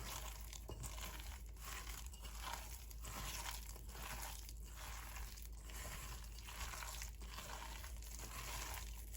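Thick ground urad dal batter with chopped onions, curry leaves and chillies being mixed, in a steady rhythm of soft strokes.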